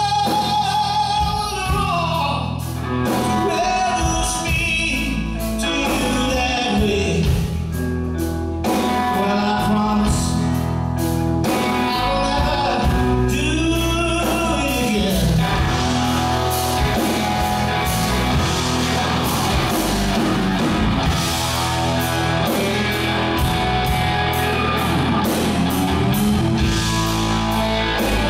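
Live country-rock band: a man singing over electric guitar, bass and drums, with the singing giving way about halfway through to an electric guitar solo.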